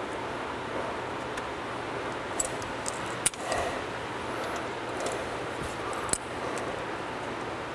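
A few sharp clicks and snaps as pliers squeeze a Scotch lock (insulation-displacement) connector shut on a pair of wires, the loudest about three seconds in, over steady shop room tone with a faint hum.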